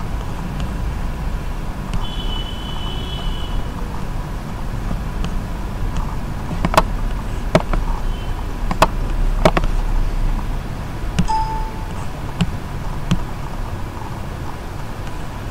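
Steady low background rumble with several sharp clicks in the middle and a brief faint high tone early on.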